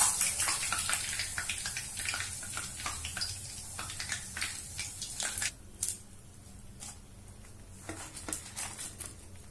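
Hot oil sizzling and crackling in a steel kadai as cornflour-battered boiled egg halves are deep-fried and lifted out with a wire strainer. The sizzle dies down about halfway through, leaving only scattered pops.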